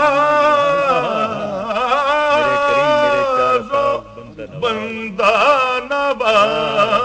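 Urdu naat sung by a solo male voice in long, ornamented held notes that waver in pitch. The voice breaks off briefly about four seconds in, then takes up the next phrase.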